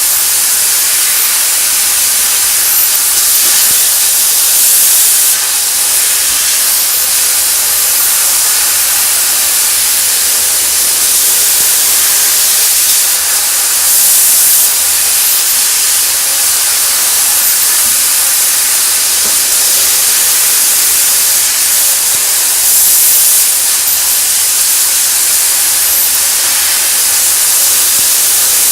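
Prima Power fiber laser cutting machine cutting 8 mm steel plate: a loud, steady hiss from the gas jet at the cutting head. The hiss briefly gets louder three times: about five seconds in, around fourteen seconds, and near twenty-three seconds.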